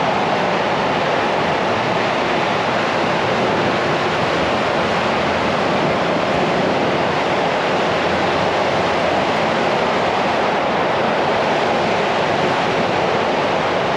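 Steady rush of ocean surf mixed with wind blowing across the microphone, an even noise with no breaks.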